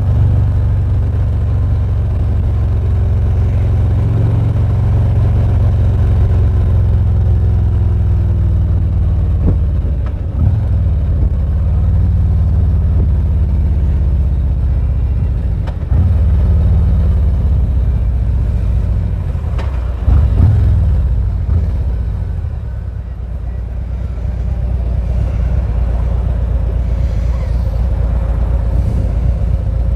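2019 Harley-Davidson Ultra Limited's V-twin engine running under way, with a loud low rumble of engine and wind buffeting picked up by a lapel mic inside a full-face helmet with the visor up. The engine note changes a few times as the bike's speed changes, and eases off briefly just after twenty seconds in.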